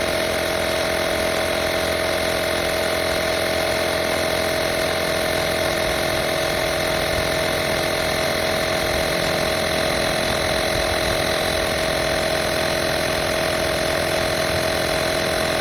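FORTEM 12V portable tyre compressor running steadily as it inflates a tyre, a constant mechanical hum at one unchanging pitch.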